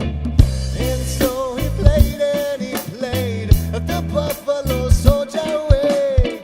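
Live full band playing a reggae-style groove: drum kit and bass, with a long, wavering lead melody line held over them.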